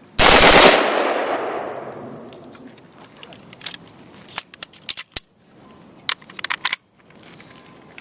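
A semi-automatic rifle bump-fired in one short rapid burst of shots lasting about half a second, its echo fading over the next two seconds. A few seconds later come a series of sharp metallic clicks and clacks as the rifle is handled.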